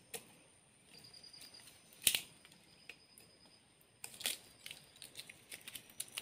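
Dry twigs and kindling snapping and crackling as a small campfire is got going: a few sharp snaps, the loudest about two seconds in, with fainter crackles and rustling between.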